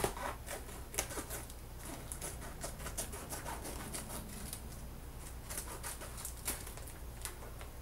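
Brown paper mailing bag being cut and torn open by hand, giving irregular crinkling and sharp clicks and snips.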